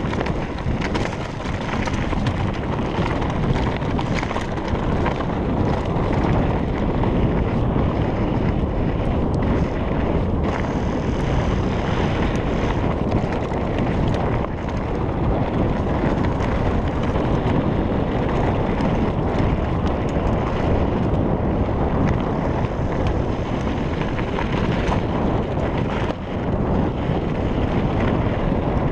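Wind rushing over the camera microphone on a mountain-bike descent, with a steady rumble of riding noise and frequent small clicks and rattles from the bike on rough trail.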